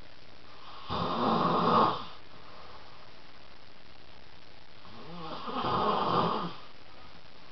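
A man snoring in his sleep: two loud snores about four seconds apart, each lasting a second or more, the second one building up more gradually. A steady background hiss fills the gaps between them.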